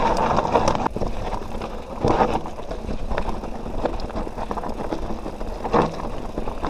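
Canyon Nerve mountain bike ridden over rough trail: steady tyre noise on dirt and rock with many rattling clicks and knocks from the bike, surging louder about two seconds in and again near the end.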